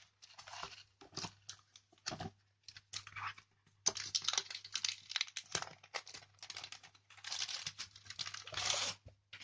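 The paper wrapping of a set of collection photos being torn open and crinkled by hand: a run of irregular crackles and rustles, sparse at first and thickest in the last five seconds.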